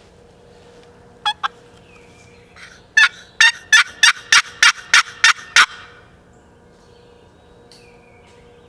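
Loud, close turkey yelping: two short clucks about a second in, then a run of about nine evenly spaced yelps, roughly three a second, that stops after about two and a half seconds.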